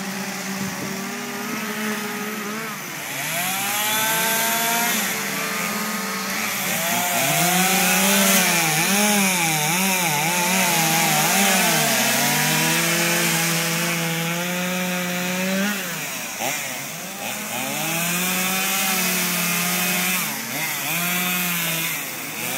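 Two-stroke chainsaws cutting through fallen tree trunks, more than one running at a time. Their engines rev up and down continuously, the pitch rising and falling every second or so.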